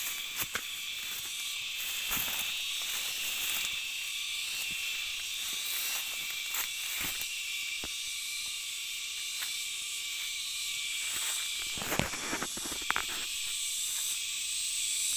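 Steady chorus of insects, a continuous high buzz, with scattered rustles and snaps of plants being handled and pulled; a few sharper snaps come near the end.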